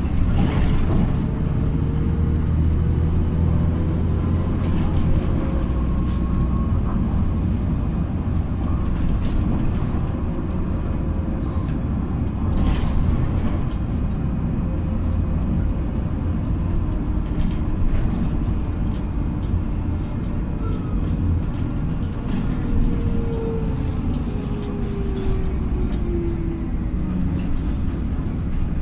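Inside a moving LiAZ 5292.67 city bus with a YaMZ-53624 engine: a steady low engine and road rumble, with scattered clicks and rattles. A faint drivetrain whine falls in pitch near the end as the bus slows for a stop.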